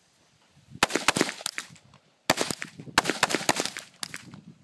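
Handgun fired in rapid strings of sharp shots: a quick run about a second in, a pair near the middle, then a longer fast string.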